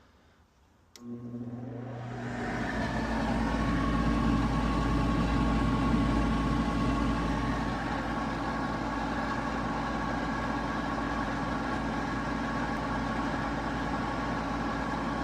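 Goodman GPH14 gas pack starting up: a click and a motor hum about a second in, then a steady rushing run that builds over the next few seconds as the fan motor comes up to speed.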